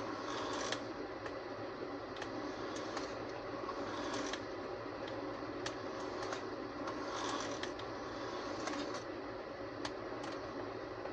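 Small electric motor and gearing of a powered HO-scale Bachmann Plus Great Northern model diesel unit running with a steady whirring hum as it drives back and forth along a short piece of track, with scattered light clicks from the mechanism and wheels.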